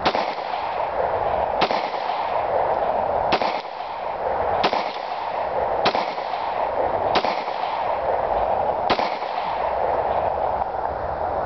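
Glock 23 .40 S&W pistol fired seven times at a slow, uneven pace, roughly one shot every one and a half seconds, over a steady background hiss. No ring of a bullet striking the steel target follows any shot: the rounds are missing, the loose rear sight throwing the aim off.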